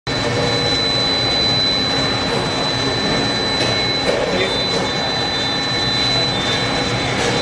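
CNC multi-spindle drilling machine running: a steady machine noise with a constant high-pitched whine and a few faint clicks.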